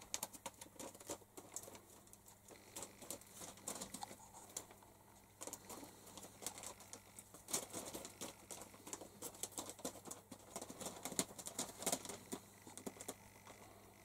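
Pigeons' feet shuffling and scratching on newspaper: faint, irregular clicks and rustles that grow busier about halfway through.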